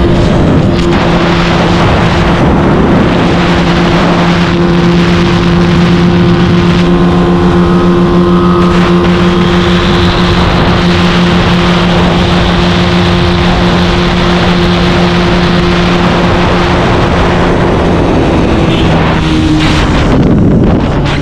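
Small motorcycle engine held flat out at a steady high pitch at top speed, with heavy wind rush. The engine note drops slightly near the end.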